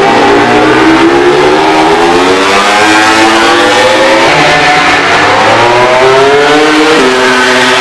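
Honda RC213V MotoGP bike's V4 engine at high revs, climbing in pitch as it accelerates, with a sudden drop in pitch about seven seconds in.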